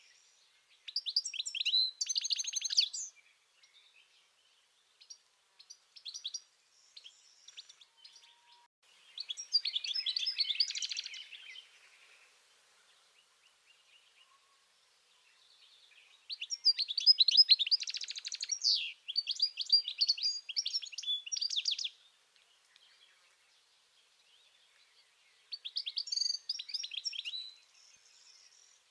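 European goldfinch singing: four bursts of rapid, high twittering song with pauses of several seconds between them, the longest and loudest burst lasting about five seconds past the middle.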